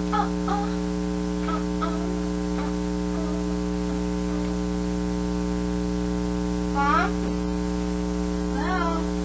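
Steady electrical mains hum with a stack of buzzing overtones, picked up on the recording. Faint brief vocal sounds come near the start, and two short high-pitched gliding squeaks come about seven and nine seconds in.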